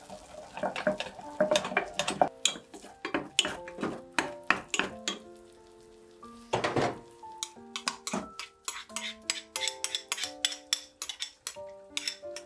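A spoon stirring and scraping in an enamel saucepan as butter and flour cook into a roux, a rapid run of clicks and clinks against the pot, with one louder knock about seven seconds in.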